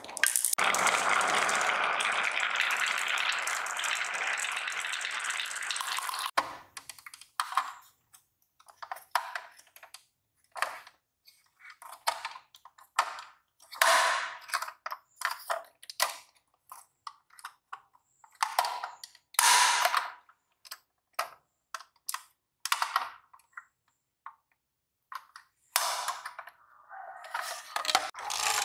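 A scatter of small marbles rolling and clattering across a hard tabletop for about six seconds, then stopping abruptly. After that come scattered light clicks and knocks from a plastic toy garbage truck being handled, with a short denser clatter near the end.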